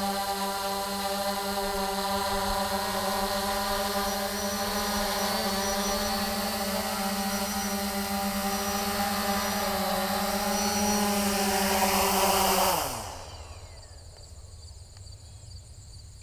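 Holy Stone HS700D quadcopter's motors and propellers running with a steady whine, then spinning down with a falling pitch and stopping about 13 seconds in.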